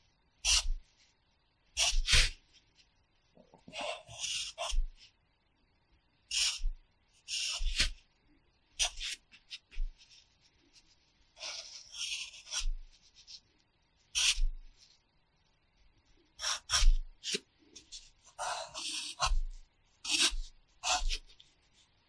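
Pencil writing hiragana on the paper of a practice workbook resting on a pad: short scratchy strokes in quick groups, separated by brief pauses, each stroke with a faint low thud.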